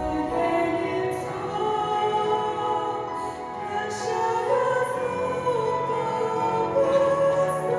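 Music with singing: voices holding long notes that step from one pitch to the next.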